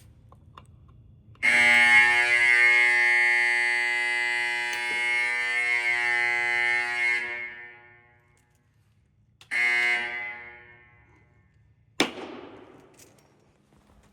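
Fire horns of an old Edwards 1301 fire alarm system sounding one loud, steady buzzing tone for about six seconds, then cutting off and echoing away. They blast again briefly a couple of seconds later, and a single sharp clack follows near the end.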